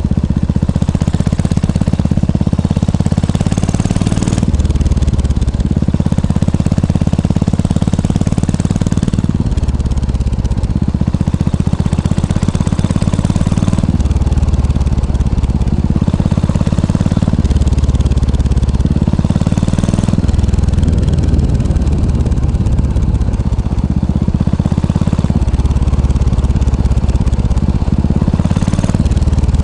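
Yamaha SR400's air-cooled single-cylinder four-stroke engine running steadily at low revs, its exhaust note up close.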